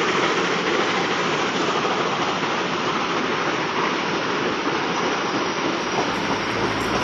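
Goods train of covered freight wagons rolling past behind a steam locomotive, a steady rushing rumble of wheels on the rails.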